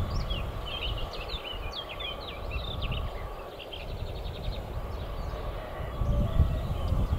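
A small songbird singing a quick run of high chirps and a short rapid trill in the first half, over a low outdoor rumble that swells near the end.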